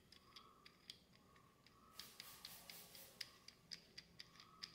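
Faint small clicks of a plastic ball-joint clamp collar being turned and fitted by hand on a phone-holder mount, irregular at first and coming faster, three or four a second, in the second half.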